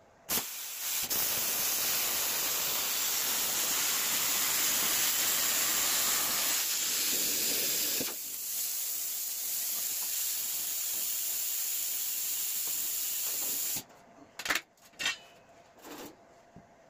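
Plasma cutter cutting sheet metal along a straightedge: a loud, steady hiss of the arc and air that starts with a short pop and cuts off suddenly near the end. A few sharp knocks follow as the cut pieces are handled.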